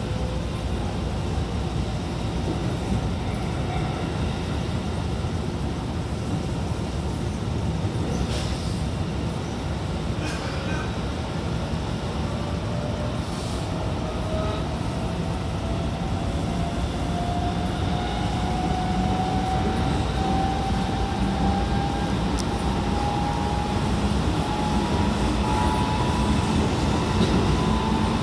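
Shin-Keisei 8900 series electric train's Mitsubishi GTO VVVF inverter drive and traction motors, heard from inside the passenger car: a whine that climbs slowly and steadily in pitch as the train gathers speed, over the rumble of wheels on rail. A few short sharp clicks come through about a third of the way in.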